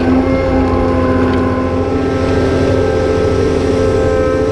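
Cat 390F excavator's C18 diesel engine running hard under load, with the steady whine of its hydraulic pumps on top; the pitch shifts slightly about two seconds in as the operator works the levers.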